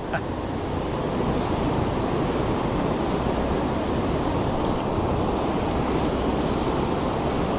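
Steady rush of river water flowing over shallow stones and a low weir.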